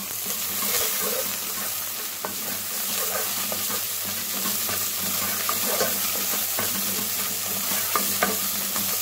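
Chopped onion, garlic and ginger sizzling in hot oil in a nonstick pan while being stirred, with scattered light scrapes and taps of the spoon against the pan and a few sharper clicks near the end. The aromatics are being fried (bhuna) until the raw garlic and ginger are cooked through. A low steady hum runs underneath.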